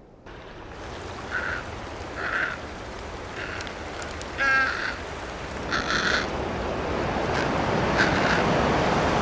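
Short bird calls repeated about every second over steady ocean surf; the surf grows slowly louder.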